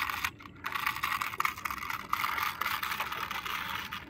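Plastic toy tractor and dump trailer pushed by hand across a rough mat, its plastic wheels rolling steadily, with a short break about half a second in.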